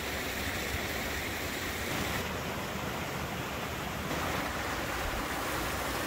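Steady rushing of a fast-flowing stream spilling over small waterfalls.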